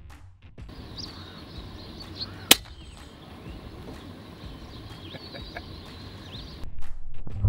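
A single shot from an FX Crown Mk2 .177 PCP air rifle about two and a half seconds in, a short sharp crack. Small birds chirp in the background.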